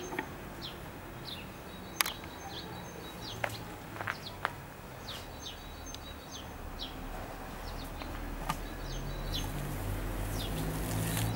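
Small birds chirping over and over in short downward-sweeping notes, with a few sharp clicks. A low hum grows louder near the end.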